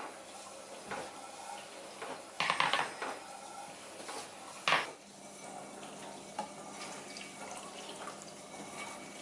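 Dishes and cutlery clinking as they are handled in a kitchen, with a short run of clattering about two and a half seconds in and one sharp clink a little before the middle.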